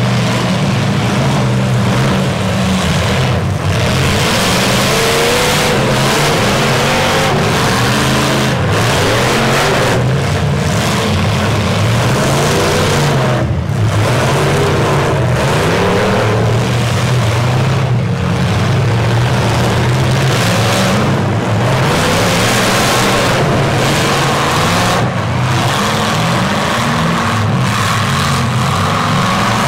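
Several demolition-derby trucks' engines running loud and revving, their pitch rising and falling as the trucks drive and push against each other in the dirt.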